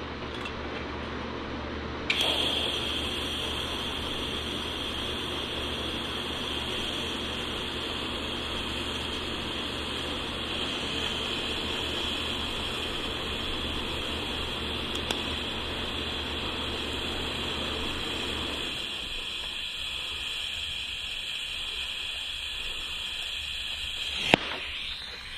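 TIG welding arc buzzing steadily with a high-pitched whine while a tack weld is laid. The arc strikes about two seconds in and cuts off near the end.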